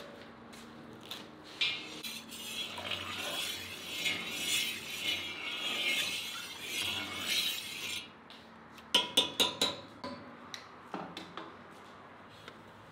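A bristle brush swishing liquid around inside a cast-iron kazan for about six seconds, followed by a quick run of five or six sharp clinks, then a few softer ones.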